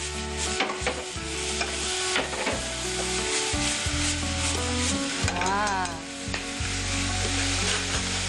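Shelled sweet peas with minced ginger and garlic sizzling in hot oil in a nonstick frying pan as they are stir-fried and tossed, with the scrape and rattle of the peas moving in the pan.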